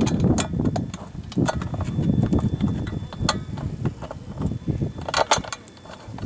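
Bolts and metal mounting hardware clinking and tapping at an uneven pace as a boat seat pedestal is lined up and bolted back on.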